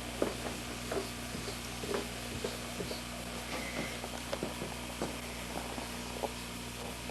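Handling of a camcorder: irregular light clicks and taps, a few per second, over a steady low hum.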